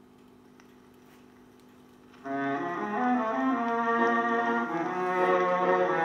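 Record-53 valve radiogram playing a record: a faint steady hum with a few needle clicks, then about two seconds in the instrumental introduction of the recording starts abruptly and loudly through the set's speaker.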